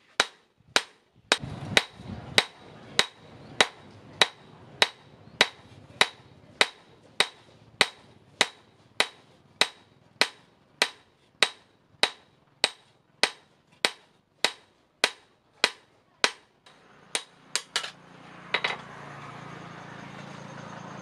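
Hand-hammer blows ringing on a hot steel cleaver blade held in tongs on a stake anvil, struck at a steady pace of a little under two blows a second. Near the end the rhythm breaks into a few last uneven blows, and a steady low hum with hiss sets in.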